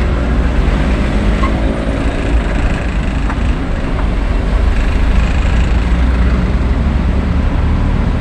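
Motor vehicle on the move: a steady low engine and road rumble.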